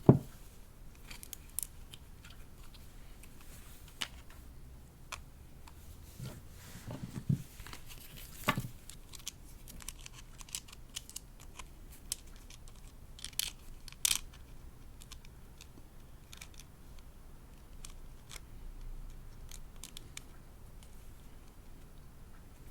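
Hands handling a plastic fashion doll and its packaging: scattered small clicks, taps and rustles, with a sharp click right at the start and louder handling noises about seven to nine seconds in and again near fourteen seconds.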